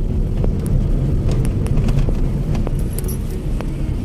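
Car driving, heard from inside the cabin: a steady low engine and road rumble with scattered light clicks and rattles.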